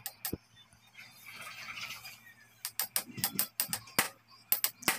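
Hammer striking a hand impact driver set in a seized fairing screw: two sharp metallic taps at the start, then a quick run of about ten taps from about halfway through. The screw is very tight and will not come out by ordinary unscrewing.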